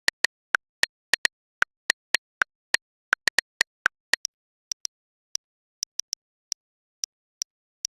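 A run of short, sharp typing clicks at an uneven pace, about three or four a second, like a keyboard sound effect. After about four seconds the clicks turn fainter and thinner.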